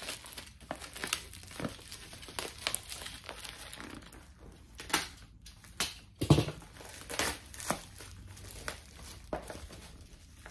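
Packaging crinkling and rustling as a sealed cardboard box is torn open and its wrapped contents are handled, in short irregular strokes, with a dull thump about six seconds in.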